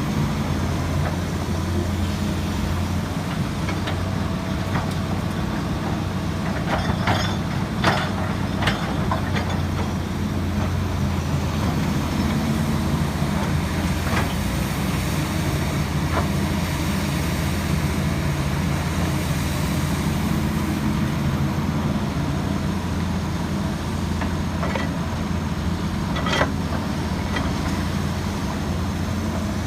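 Kobelco SK200 hydraulic excavator's diesel engine running steadily. A few sharp knocks come about seven to nine seconds in, and one more near the end.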